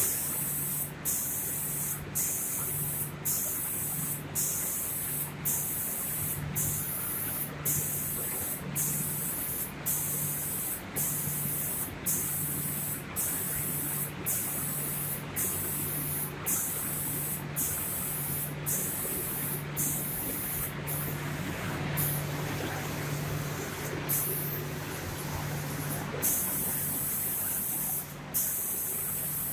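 Automatic paint spray guns of a door-painting machine hissing in repeated bursts, about one a second with short gaps, with a low hum pulsing in step. Near the end the spray runs longer without a break.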